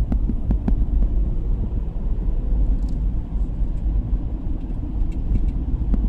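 Steady low rumble of a car driving along the road, heard from inside the car, with a few faint clicks.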